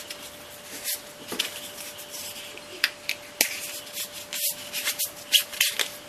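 Heat-shrink sleeves and a rubber cable boot being slid by hand onto insulated jump lead cables: plastic tubing rubbing and rustling on the cable, with several short scuffs.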